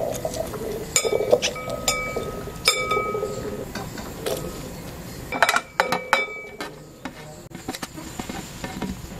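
Clinks and knocks against a glass mixing bowl, several leaving a short ringing tone, as herbs and green chilli are crushed in it and chopped onion is tipped in from a metal dish, with a cluster of knocks about five and a half seconds in.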